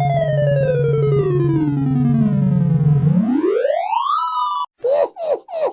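Computer-synthesized sorting tones from The Sound of Sorting: a quick run of beeps slides steadily down in pitch for about three seconds over a low steady tone, then a fast rising sweep plays as the sorted array is checked, ending in a brief held high tone that cuts off abruptly. Just before the end a voice starts.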